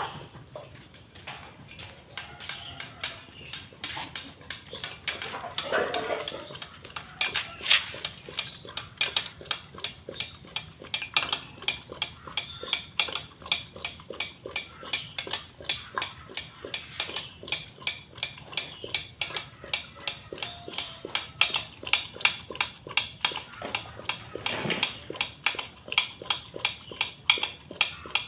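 Large pit bull eating from a stainless steel bowl: a rhythmic run of wet chomping and lapping, about three a second, with its metal chain collar clinking against the bowl.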